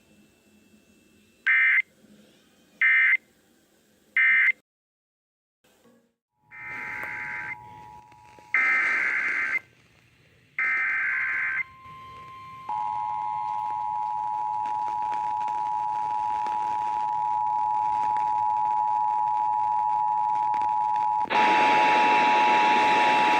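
Emergency Alert System data tones. First come three short bursts of digital data tones about a second and a half apart, the end-of-message code of the alert just read. After a short silence come three longer data bursts, the header of the next alert, and then the steady two-tone attention signal for about ten seconds, with hiss joining it near the end.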